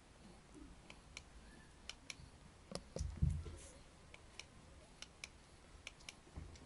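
Newborn Chihuahua puppies suckling at their mother's teats: faint, irregular small clicks and smacks scattered throughout. A soft low thump comes about three seconds in.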